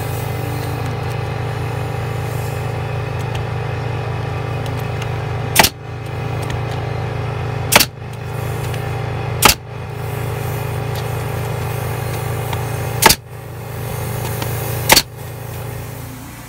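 Nail gun firing five single sharp shots, spaced a second or more apart, driving nails into a wooden board along the base of a greenhouse. A steady low machine drone runs under the shots and fades near the end.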